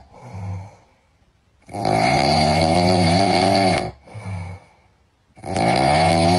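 Loud snoring: two long snores of about two seconds each, each followed by a short, softer breath out, with silent pauses between.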